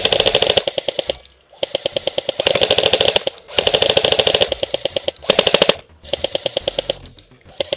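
Magpul PTS Masada airsoft electric rifle firing long full-auto bursts, a rapid even rattle of shots, stopping and starting again several times, the last burst weaker.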